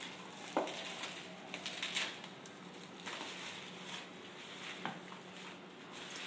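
Plastic bubble wrap crinkling and rustling in the hands as a small box is slid out of it, with irregular crackles and a few sharper rustles.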